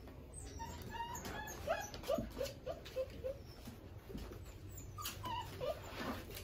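Six-week-old Cane Corso puppy whimpering: a run of short whines, each falling in pitch, over the first few seconds, and a few more near the end.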